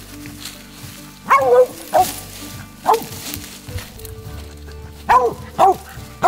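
Mountain Cur hound barking in short, separate barks, about five in two bunches, the way a tree dog bays at a squirrel it has located up a tree.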